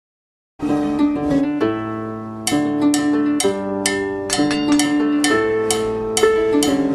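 Dead silence for about half a second, then a harp-like plucked-string tune begins, notes plucked in quick succession and left to ring.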